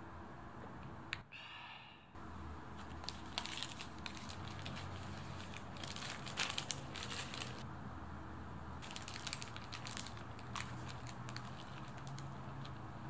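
Paper wrapper around a sandwich crinkling and rustling as hands grip and handle it, in several spells of crisp crackles.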